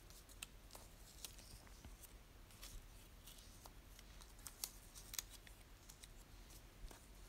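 Faint paper handling: scattered soft ticks and rustles as paper cut-outs are slid and pressed into place on a notebook page.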